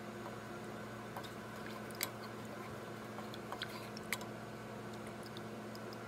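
Plastic spoon stirring and scooping a thick chicken-and-tofu stew in a pot: soft wet squelching with a few light clicks of the spoon against the pot, over a steady low hum.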